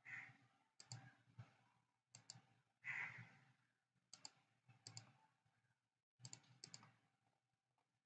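Faint computer mouse clicks, several of them in quick pairs, as a slide deck is scrolled and clicked through; otherwise near silence.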